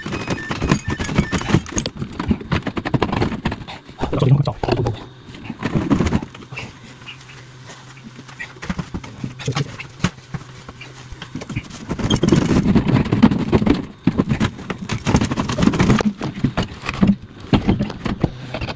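Knocking, scraping and clattering of an old Potterton Prima gas boiler's metal casing and wall bracket as it is worked loose and lifted off the wall, in irregular bursts with heavier handling about a third of the way in and again past the middle.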